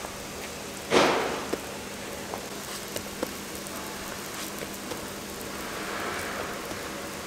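Hotteok dough sizzling steadily on an oiled flat griddle, with a loud surge of sizzling about a second in as a round metal hotteok press flattens a pancake, and a few light clicks of the press and hands on the griddle.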